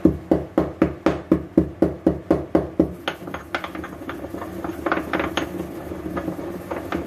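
Pestle pounding black peppercorns and green cardamom pods in a small mortar to a coarse crush. A steady run of sharp strikes, about four a second, lasts about three seconds, then gives way to lighter, uneven taps.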